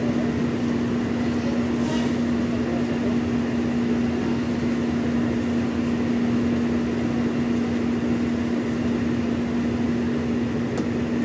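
Steady cabin drone inside a King Long XMQ6871CY coach bus, its engine and air conditioning running with a constant low hum.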